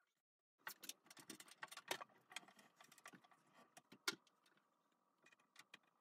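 Faint, scattered clicks and taps of hands and a tool working on the sheet-metal cover of an EcoSmart tankless electric water heater, starting about a second in and dying away after about four seconds, with one sharper click near the end.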